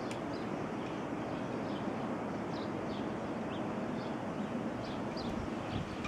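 Blizzard wind blowing steadily, with faint short high chirps scattered through it every second or so.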